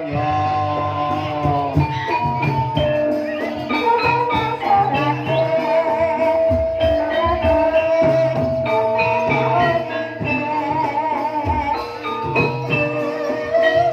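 Traditional Javanese music of the kind that accompanies a barongan performance: metal mallet percussion playing melodic notes over drum strokes, with held wavering melody notes above.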